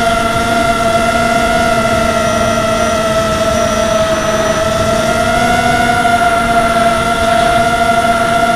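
Electric quadcopter's motors and propellers, heard from its onboard camera, whining at a steady high pitch that sags slightly about four seconds in and rises briefly around six seconds, over a haze of wind and airflow noise.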